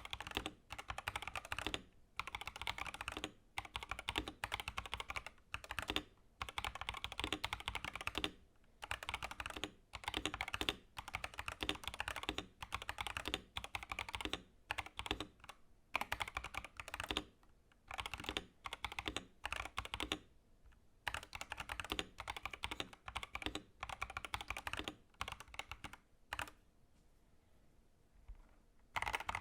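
Typing on an Epomaker TH80 Pro mechanical keyboard with factory-lubed Epomaker Flamingo linear switches, a steel plate and PBT keycaps. Runs of rapid keystrokes come in bursts with short pauses, and there is a longer lull near the end.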